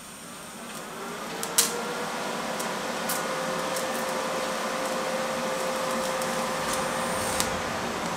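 TIG welding arc on a cast-iron motorcycle cylinder, melting bronze filler rod to build up a cooling fin. The arc strikes just after the start and buzzes steadily; its tone rises slightly over the first second and a half, then holds. A few sharp crackles are heard, the loudest about a second and a half in.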